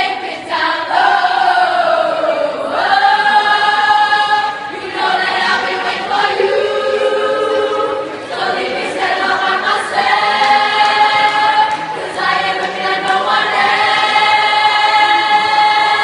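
A choir singing a cappella in harmony, in phrases of long held chords.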